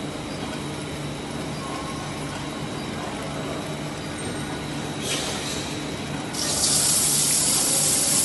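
Induction hardening machine humming steadily while the steel part heats red-hot in the coil. A short hiss comes about five seconds in. Then, from about six and a half seconds, a loud steady hiss as the quench water sprays onto the glowing part and turns to steam.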